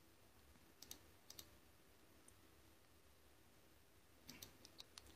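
Faint computer mouse clicks over near silence: a couple of clicks about a second in, then a quick run of clicks near the end.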